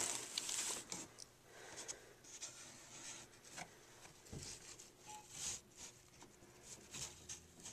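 Faint scattered rubbing and scraping of a hand against a corrugated cardboard box and its dividers, in short brushes a second or so apart.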